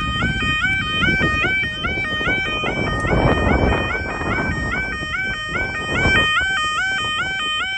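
Electronic level crossing warning alarms sounding: several alarms each repeat a quick rising warble about twice a second, out of step with one another. A gusty low rumble of wind on the microphone runs underneath.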